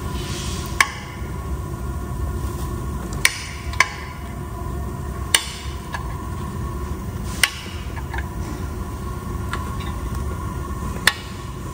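Removed vehicle seat's metal folding and recline mechanism, clicking and clunking as the seatback is worked and folded down: about six sharp, irregular clicks over a steady low rumble.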